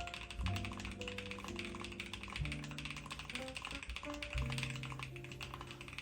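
Fast, continuous typing on an Epomaker x Leobog K81 75% mechanical keyboard, a dense patter of keystrokes, over background music with held notes and a bass line.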